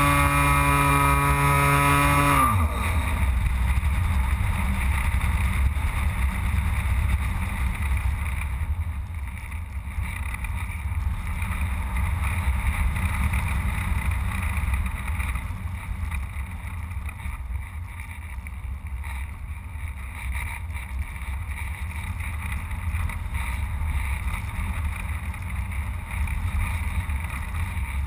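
Carl Goldberg Electra RC sailplane's electric motor and propeller whining steadily, then cut off about two and a half seconds in, the pitch dropping away. After that only wind rushes over the airframe and camera as the plane glides unpowered.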